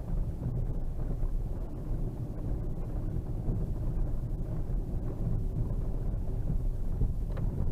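Steady low rumble inside the cabin of a Škoda Superb II 3.6 VR6 on the move: engine and tyres on packed snow. It grows louder right at the start, then holds even.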